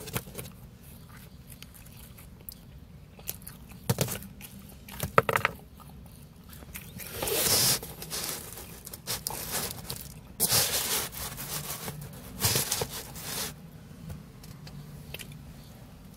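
Eating pepperoni pizza close to the microphone: a handful of short crunching and scraping noises, from biting the crust and from the slice being lifted off the pizza box's corrugated liner.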